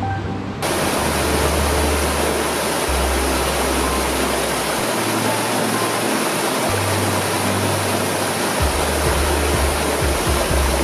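Rushing water of a rocky stream cascading over boulders, a steady hiss that comes in suddenly about half a second in. Background music with slow, sustained deep bass notes plays under it.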